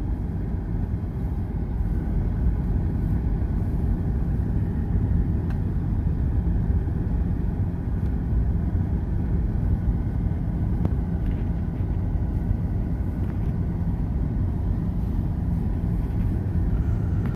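Steady low rumble of a car on the move: road and engine noise at an even level.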